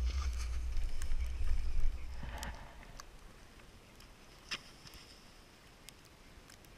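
Wind buffeting the camera microphone as a low rumble for about two seconds, then faint hiss of skiboards sliding on snow with a few light clicks.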